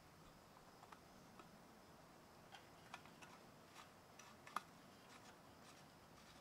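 Faint scattered clicks and light taps from fittings on the fuel tank of a small antique hit-and-miss engine being handled by hand, with one sharper click about four and a half seconds in. The engine is not running.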